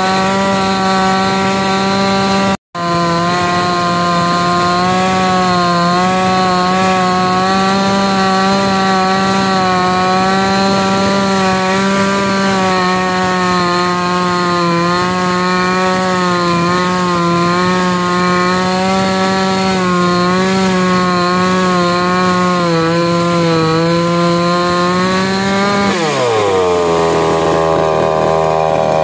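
MIR 8500 gasoline chainsaw's two-stroke engine running at high revs while it cuts through a log, its pitch wavering up and down as the chain bites. The sound drops out for an instant about three seconds in. Near the end the revs fall away sharply to a lower, steady note.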